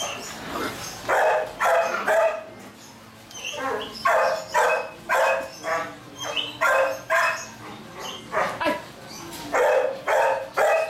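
Belgian shepherd puppies barking in quick runs of short, high barks, two or three a second, with short pauses between the runs, while they tug at a rag in play.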